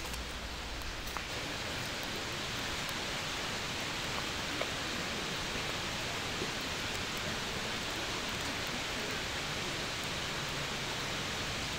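Campfire of dry twigs and branches catching in a fire grate: a steady hiss with a few sharp crackles.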